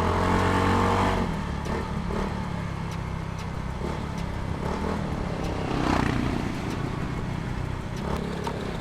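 Yamaha Mio Soulty scooter's single-cylinder engine running through an aftermarket ORBR exhaust pipe while being ridden. It swells briefly in the first second and again about six seconds in.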